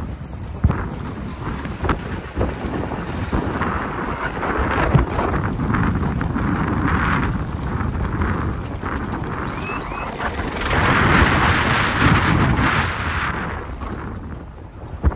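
Off-road jeep driving over a rough track: a steady rumble with many knocks and rattles from the bumps, swelling louder for a couple of seconds near the end.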